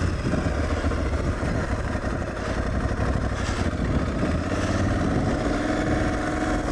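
Aprilia Tuareg 660 parallel-twin engine running at steady trail speed on a dirt road, mixed with wind and tyre noise. The engine note holds steady through the last couple of seconds.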